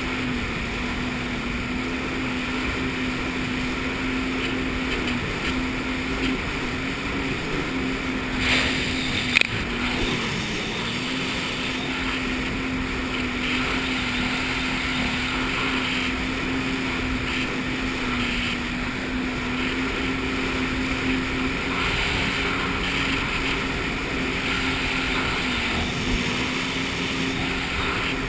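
Jet ski engine running steadily under way, over rushing water and wind noise. About nine seconds in there is a brief sharp knock.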